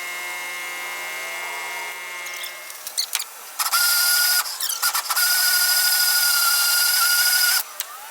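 A steady machine hum cuts off about two and a half seconds in. Then a power drill runs in two bursts, a short one and a longer one of about two and a half seconds, its motor whining at a steady pitch.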